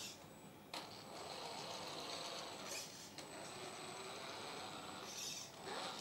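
1/8-scale CROSSRC EMO X3 RC crawler's electric motor and geared drivetrain whining as the truck drives slowly in low gear. The whine dips at the start and picks up again under a second in.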